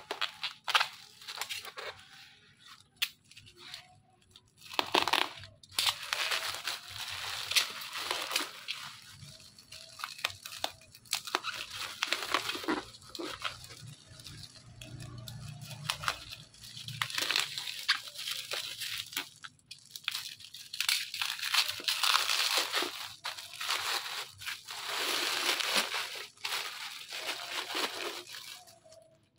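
Bubble wrap and plastic packaging rustling and crinkling in irregular bursts with sharp crackles, as the wrap is cut open with a utility knife and peeled off a plastic measuring jug.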